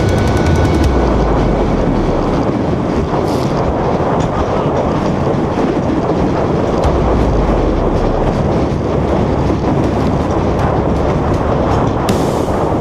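A loud, steady rumble and rushing noise that goes on without a break.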